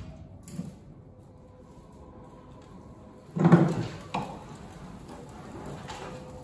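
A 1970 MG Midget bodyshell being rolled over by hand on a rotisserie: one loud clunk about three and a half seconds in, followed by a sharper knock.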